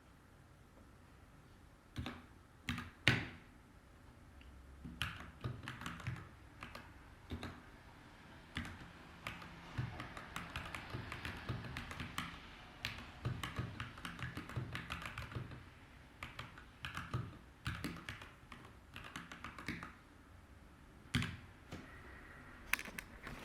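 Typing on a Montech MKey TKL mechanical keyboard with Gateron Pro G 2.0 brown tactile switches: a few separate keystrokes after a couple of quiet seconds, then a steady run of fast typing that pauses briefly near the end.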